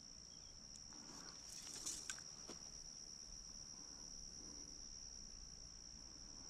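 Crickets chirring steadily in one high, even tone, with a few faint clicks and rustles about two seconds in.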